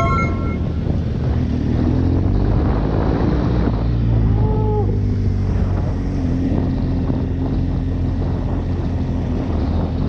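Boat engine running steadily, with wind buffeting the microphone. A short higher sound rises and falls about four seconds in.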